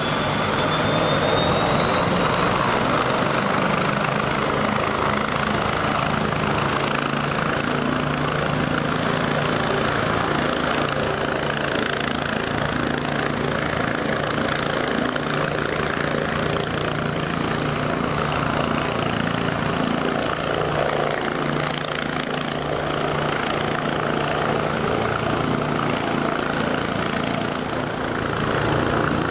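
Steady drone of light aircraft at an airfield: the piston engine and propeller of a small single-engine Cessna taxiing, mixed with helicopter rotor and engine noise. A thin high whine rises in pitch over the first couple of seconds.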